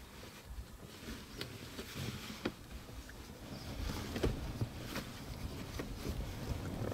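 Outdoor ambience: a low, steady rumble with faint sharp clicks scattered irregularly through it.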